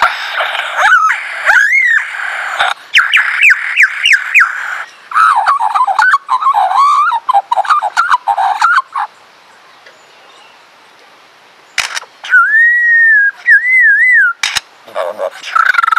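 Lyrebird singing a rapid medley of its repertoire: quick whistled sweeps and chirps with sharp clicks mixed in. After a pause of about three seconds past the middle, it gives two clear whistled phrases, the second wavering.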